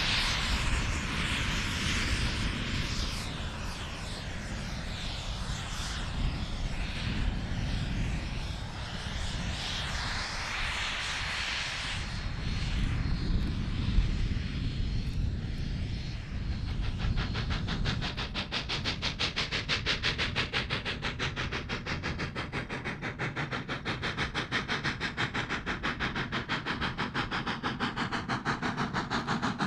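Narrow-gauge K-36 2-8-2 steam locomotive working a train. At first there is a distant rumble and hiss. From about halfway, its exhaust beats come fast and even as it draws nearer.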